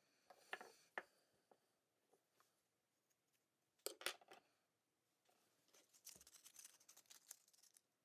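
Near silence with faint hand-work sounds on a small wooden bird carving: scattered light clicks, a short cluster of louder clicks about halfway through, and rapid light scratching of sandpaper on the wood near the end.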